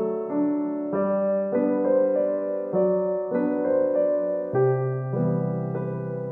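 Background music: a slow piece on electric piano, chords and notes changing about every half second to second.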